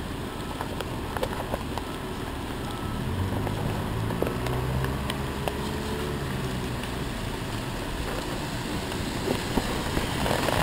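Heavy rain falling steadily on a wet sidewalk, with a wheelchair rolling over the pavement. A low hum comes in about three seconds in and fades out near the end.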